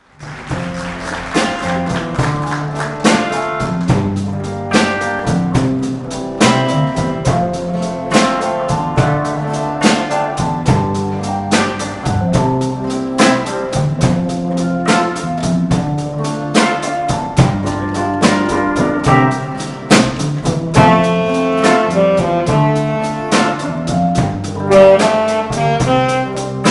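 A live band plays a jazzy number: a saxophone carries the tune over a drum kit keeping a steady beat, with electric guitar, bass and keyboard.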